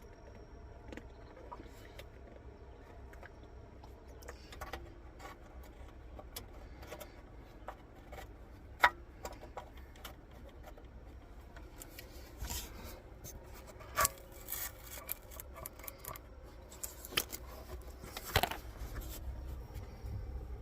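Hand tools and metal parts clinking, rubbing and scraping during work on an old boat engine. There are scattered light clicks throughout and a few sharper clicks about halfway through and near the end.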